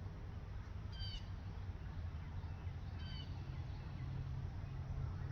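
Bald eagle calling: short, high-pitched piping notes, a quick descending series about a second in and a couple more about three seconds in, over a steady low background rumble.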